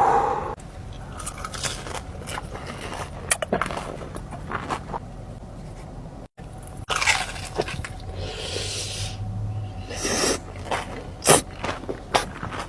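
Close-up eating sounds of mozzarella sticks: irregular crunchy bites and wet chewing, with short crackles scattered throughout.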